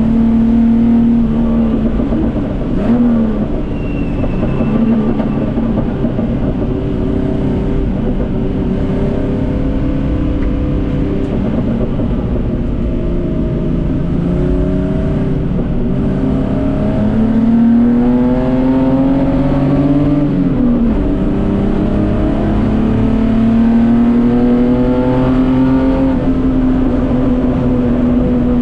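Datsun 240K race car's straight-six engine running hard: revs climb and fall, with sharp drops at gear changes about three seconds in and again about twenty seconds in.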